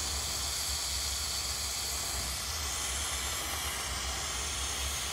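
Glassblower's bench torch burning with a big, bushy flame: a steady hiss over a low, unsteady rumble, as it heats a length of glass tube being wound into a coil.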